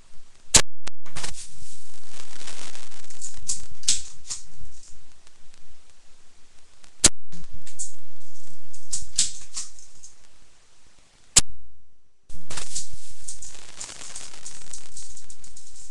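Omega MP289 pump-action BB gun fired three times, each shot a sharp snap (about half a second in, about seven seconds in and about eleven seconds in), with rattling and clicking from the gun being pumped and handled between shots.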